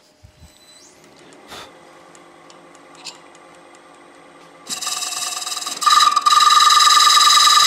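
A few faint clicks of handling, then about five seconds in a steady buzzing tone starts and grows much louder a second later. This is a wood lathe running as the tool takes another pass over the maple platter to remove a flat spot.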